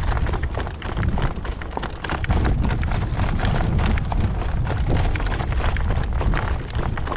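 A horse's hooves clip-clopping, many quick strikes in a row, with strong wind buffeting the microphone as a steady low rumble underneath.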